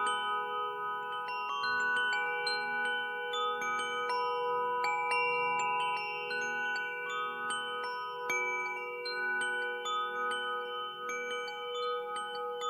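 Nada wind chimes ringing: clear metal tones at several pitches struck at irregular moments, each ringing on long and overlapping the next.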